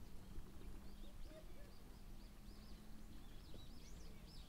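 Faint small-bird chirping: quick, high, rising-and-falling chirps that grow more frequent from about halfway in, over a low steady outdoor background.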